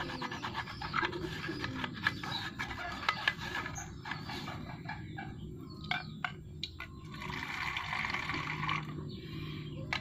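An old toothbrush scrubbing wet limescale and algae: quick, scratchy, wet strokes, coming thickest near the end.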